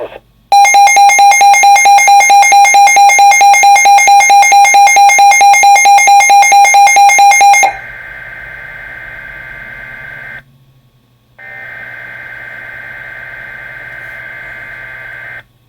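Emergency alert broadcast tones: a loud, rapidly pulsing electronic alert beep for about seven seconds, then two quieter stretches of steady, data-like warbling tones with a short break between them.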